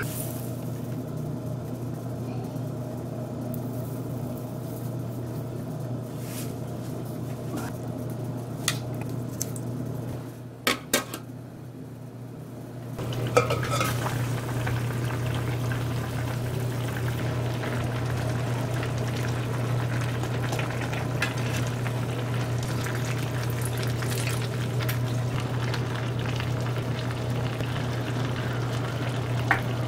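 A kimchi hot pot simmering in a metal pot on the stove, with a steady low hum and the hiss of the bubbling broth, broken by sharp clinks of a lid and utensils against the pot. The simmering grows fuller from about halfway through.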